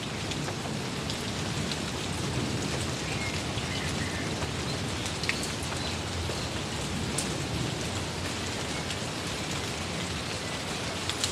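Steady rain falling, with individual drops ticking sharply here and there over the even hiss.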